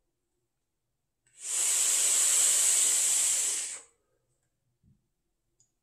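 A person's long, steady breath while vaping: an airy hiss lasting about two and a half seconds, starting a second and a half in and stopping cleanly.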